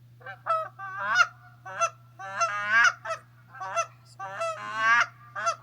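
Geese honking: a quick run of about nine honks, some short and some drawn out, with the pitch bending up and breaking.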